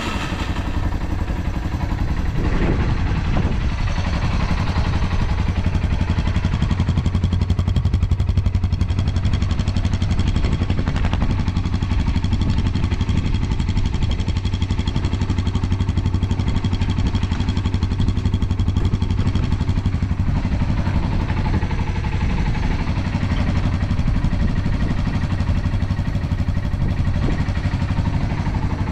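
Yamaha TW225's air-cooled single-cylinder four-stroke engine idling steadily just after starting, running evenly with no abnormal noises.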